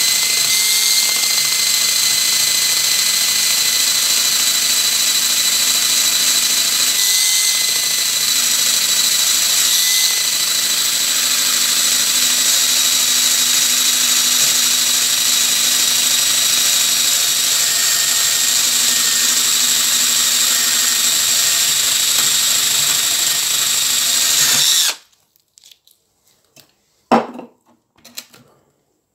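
Power drill spinning a brass wire wheel brush against the rusted steel jaws of a side cutter, scrubbing off the rust: a steady, loud whine with hiss that stops abruptly near the end. A few faint clicks and one sharper knock follow.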